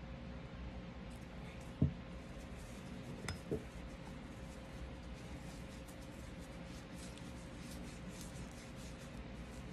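Cloth wiping and rubbing over the metal slide of a field-stripped Smith & Wesson M&P Shield Plus 9mm pistol during cleaning: soft scratchy strokes. A dull knock comes about two seconds in, then two light clicks about a second and a half later, over a faint steady hum.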